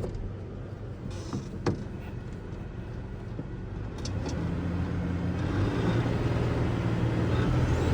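2001 Ford Ranger engine running, picking up and running louder from about halfway through. With its waste-spark ignition coil freshly replaced, it runs without a detectable misfire.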